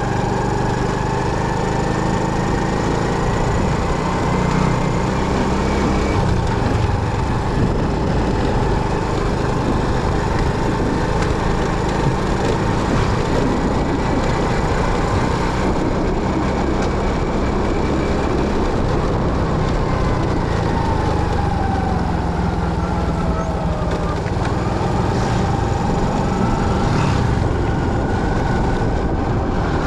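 Motorcycle engine running steadily with loud road and wind noise, while faint whining tones glide slowly up and down in pitch.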